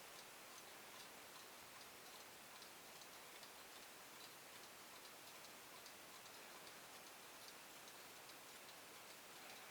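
Near silence with faint, quick ticking, about two or three small clicks a second.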